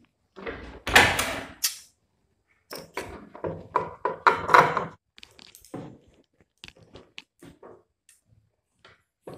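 Large tailor's shears cutting through thin blouse fabric and lining: a few longer rasping cuts with fabric rustle in the first half, then a run of short blade clicks and snips.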